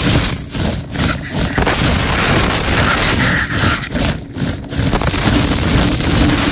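Rushing roar of compressed air blown through an air-charged duct-cleaning dislodger hose inside ductwork, over a steady machine hum. The air noise drops out briefly several times.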